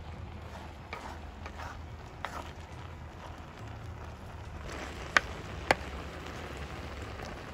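A ladle stirring and scooping chopped raw jackfruit in a clay pot, with soft scraping and light clicks and two sharp knocks about five seconds in, over steady low background noise.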